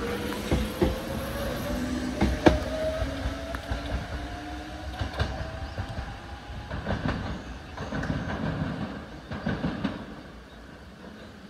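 Nose Electric Railway 5100-series electric train pulling away, its motor whine rising in pitch as it accelerates, with wheels clacking over rail joints. The sound fades as the train recedes.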